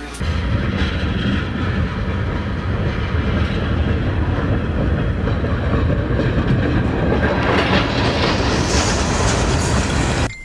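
A loud, steady rumbling and rattling noise that grows hissier in its upper range near the end, then cuts off abruptly.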